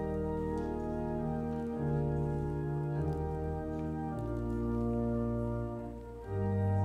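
Church organ playing slow, sustained chords over a deep pedal bass, the chords changing every second or so and swelling louder near the end.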